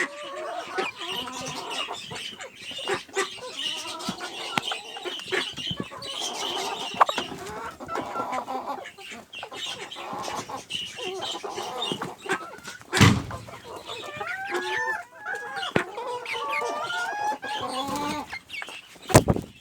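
A flock of Pekin bantam chickens clucking and squabbling over treats, many short rising and falling calls overlapping, with small clicks throughout. Two loud sudden knocks, about halfway through and near the end.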